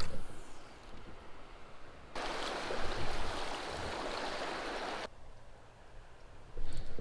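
Creek water rushing steadily through a shallow riffle. It starts abruptly about two seconds in and cuts off just as abruptly three seconds later. Before and after, there is only quieter water movement and low rumble.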